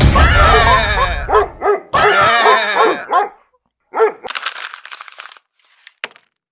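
A dog's rapid, high yelping barks in two long runs, then one short burst about four seconds in.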